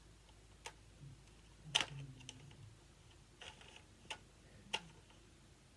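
Faint, irregular clicks and taps, about six, from handling a toy sniper rifle blaster and its adjustable scope.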